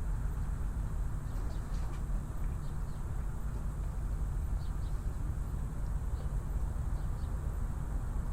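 Steady low rumble of harbour ambience, with faint short high chirps from birds scattered through it.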